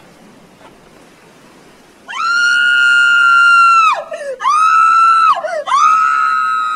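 A cartoon character's high-pitched screaming: three long, held screams, the first about two seconds long and the next two shorter, each ending with a falling drop in pitch. Before them come about two seconds of faint hiss.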